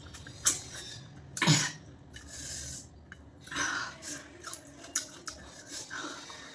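A person eating close to the microphone: many short, sharp crunchy clicks of chewing, with a louder burst about a second and a half in and another softer one around three and a half seconds.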